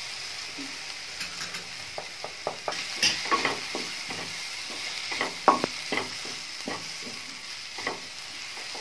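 Sliced onions, capsicum and green chillies frying in oil in a non-stick kadai with a steady sizzle, stirred with a spatula that scrapes and taps against the pan at an irregular pace.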